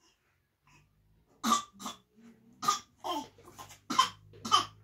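A woman coughing, a run of about seven short, sharp coughs starting about a second and a half in.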